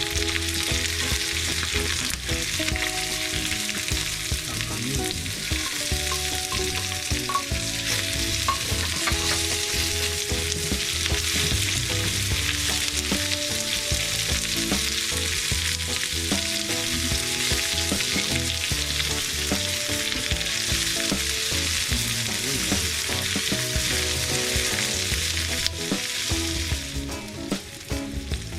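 Food sizzling and crackling steadily in hot oil in a pan, stirred now and then, with a light scraping of the utensil.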